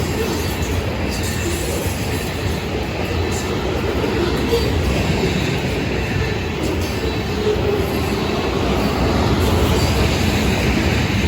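Freight cars of a long freight train rolling past, a steady, loud rumble and rattle of steel wheels on the rails.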